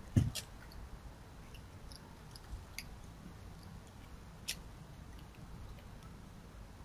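A red fox foraging: one loud thump just after the start as it noses among dry leaves and debris, then a few sharp clicks as it moves about.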